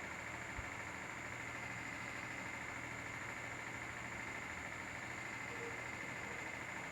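Steady machine hum with a high whine and hiss over it, and one short low thump about half a second in.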